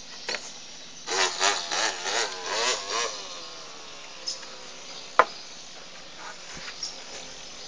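A small child imitating a chainsaw with his voice: a run of pulsing buzzes that rise and fall like an engine being revved, trailing off into a falling note. A single sharp click follows about five seconds in.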